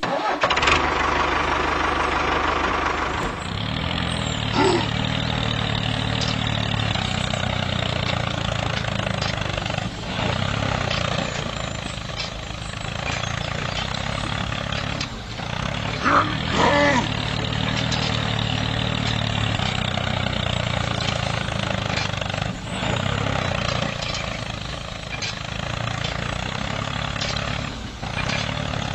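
Tractor engine running steadily, with a louder patch at the start and a couple of brief high chirps about 5 and 16 seconds in.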